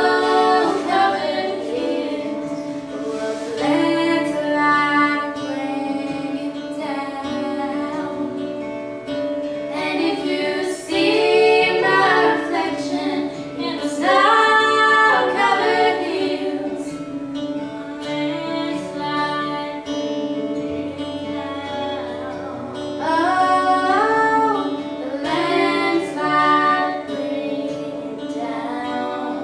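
A female voice singing a song over guitar accompaniment.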